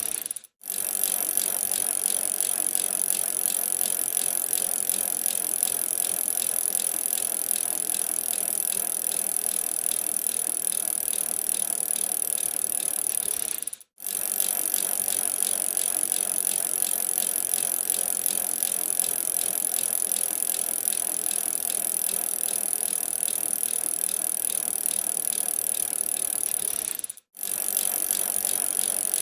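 A bicycle being ridden, with a steady fast rattling and ticking from the bike's mechanism. The sound cuts out for a split second three times, about every 13 seconds.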